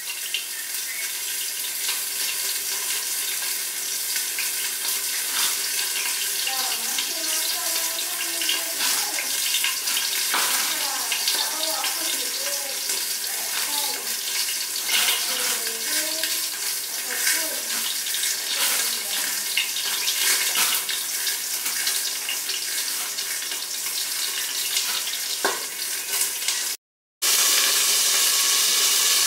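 Flour-coated torpedo scad (chencaru) shallow-frying in oil under a glass pan lid: a steady sizzle with scattered crackles. It cuts out for an instant near the end and comes back slightly louder.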